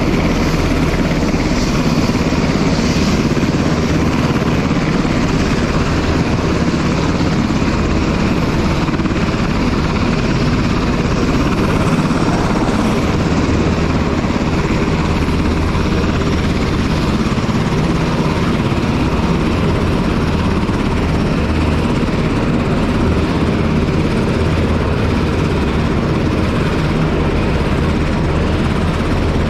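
Aircraft turbine engines running on deck: a loud, constant noise with a steady low hum that does not rise or fall.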